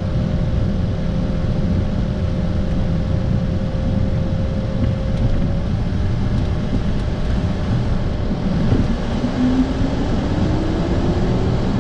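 Business jet engines heard from inside the cockpit: a steady low rumble and hum. A steady tone cuts off about six seconds in, and from about eight and a half seconds a whine rises in pitch as the engines spool up for the takeoff roll.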